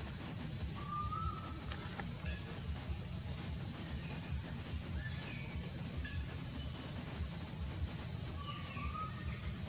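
Steady high-pitched drone of insects in the forest canopy. A few short, high chirps break in now and then, one rising about a second in and another near the end, over a low rumble.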